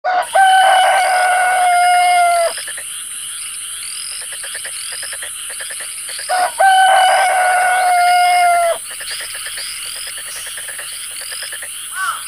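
A rooster crowing twice, each crow a long held call of about two seconds, a few seconds apart. Behind it a steady high-pitched drone and short chirps run on.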